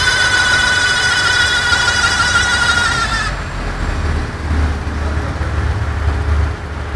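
High, wavering whine from the front wheel of a Vectra A, slowly falling in pitch and cutting off abruptly about three seconds in, leaving the low rumble of the car rolling. The noise came from a bad front wheel bearing.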